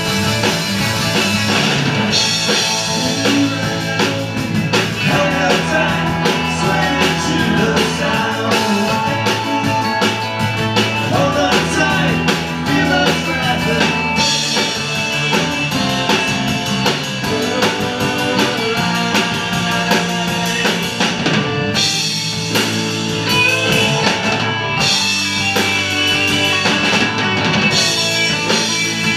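A live rock band playing: two electric guitars, bass guitar and a drum kit, steady and loud.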